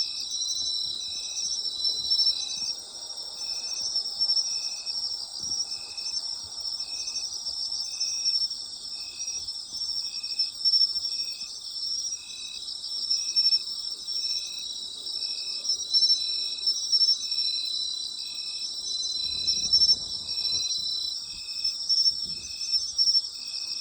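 A night chorus of autumn insects: a steady high trilling, with one insect chirping in a regular, evenly spaced rhythm over it.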